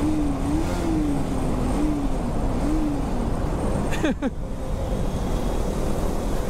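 Riding noise on a moving motorcycle: steady wind and road rush. A wavering hum-like tone rises and falls for the first three seconds or so, and a quick downward-gliding sound comes about four seconds in.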